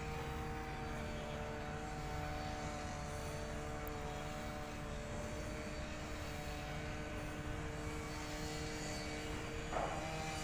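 A steady mechanical drone, like an engine running at a constant speed: a low rumble with a few held tones over it, unchanging throughout.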